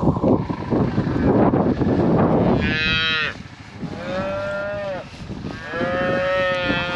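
Cattle mooing: three drawn-out moos about three, four and six seconds in, after a loud, rough, low sound over the first two and a half seconds.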